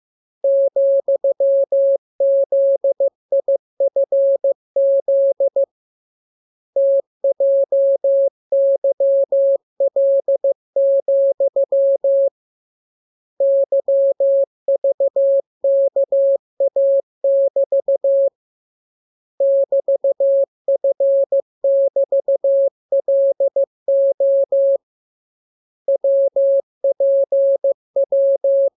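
Morse code sent as a single steady tone a little above 500 Hz, keyed rapidly into dots and dashes at an even machine speed. It comes in runs of characters broken by pauses of about a second, roughly every six seconds.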